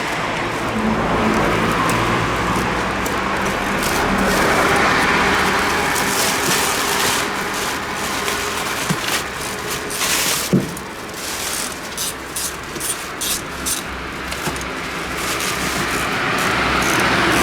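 Road traffic passing, the noise swelling and fading, with scattered short clicks and one sharp knock about ten and a half seconds in.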